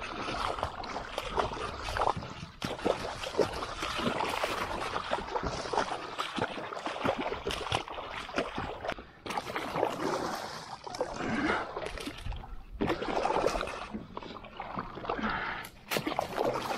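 Shallow water splashing and sloshing as a person wades through it with a kayak. The choppy, irregular sound breaks off briefly twice.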